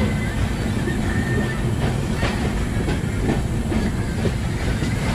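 Indian Railways Poorva Express passenger coach rolling along a station platform, heard through the open coach doorway: a steady low rumble of wheels on rails, with a run of sharp clacks from the wheels over the track in the middle.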